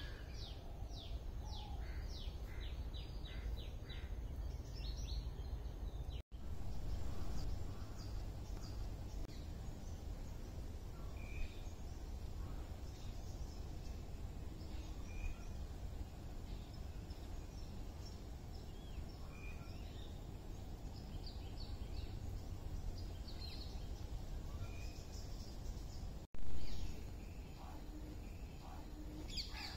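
Natural ambience of assorted small birds chirping and calling over a low steady rumble, with a fast run of chirps in the first few seconds. The sound drops out briefly twice, about six seconds in and near the end, each time followed by a short louder swell.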